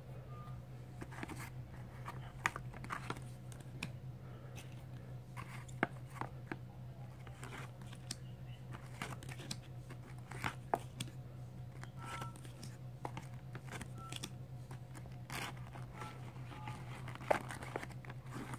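Stiff plastic card holders (top loaders) clicking and crinkling against each other as a hand flips through a stack of them, in irregular light clicks, over a steady low hum.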